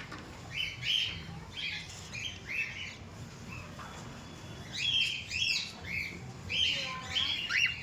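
Cockatiels chirping: repeated short, high calls in bursts, with a quieter lull around the middle.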